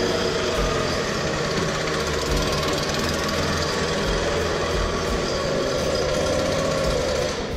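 Handheld gas-powered leaf blower running steadily at high speed.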